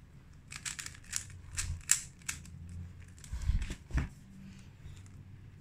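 Plastic clicking of a 3x3 Rubik's cube's layers being turned, a quick series of about eight clicks in the first couple of seconds, followed by a couple of low thumps of the cube being handled.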